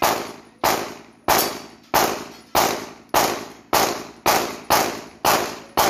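Pistol shots fired in a steady string, about one every 0.6 seconds and eleven in all, each with a short echoing tail.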